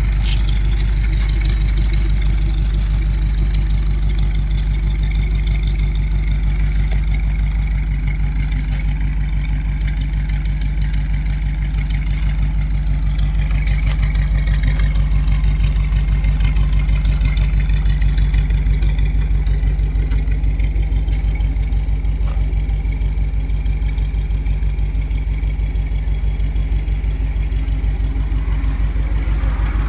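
1957 Buick Century's Nailhead V8 idling steadily, with a low, even pulse from the exhaust.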